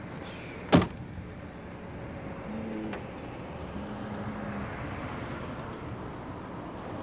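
A car door, a 1989 Ford Taurus's, slammed shut once about a second in, heard from inside the cabin, followed by a steady background hiss.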